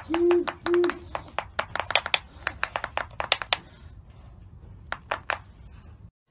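Great horned owl and owlets bill-snapping: rapid, irregular sharp clicks, thinning out after about four seconds with a few last snaps near five seconds, a warning display at an intruder. Two short low calls sound in the first second.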